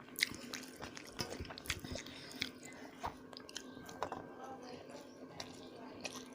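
A person chewing and biting food close to the microphone, with wet mouth clicks and smacks coming irregularly.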